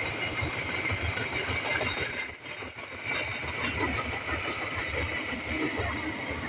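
Passenger train coaches running past on the track: a steady rumble of wheels on rail with a high, steady whine over it. The whine fades as the last coach goes by near the end.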